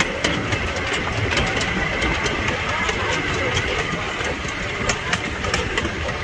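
Miniature train running along its track: a steady low engine rumble under running noise, with frequent short clicks from the wheels and a faint steady high whine.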